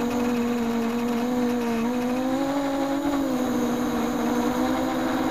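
Quadcopter's four DYS 1806 brushless motors and 6x4.5 propellers whining steadily in flight, heard close up from on board. The pitch rises a little about two seconds in and eases back down about a second later as the throttle changes.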